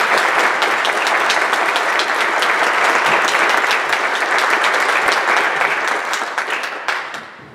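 Audience applauding: a dense patter of many hands clapping that thins out and dies away in the last second or so.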